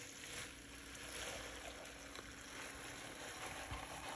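Metal potato masher pressing into chunks of very overripe watermelon in a stainless steel pot: a soft, steady wet mashing noise, with a light knock near the end.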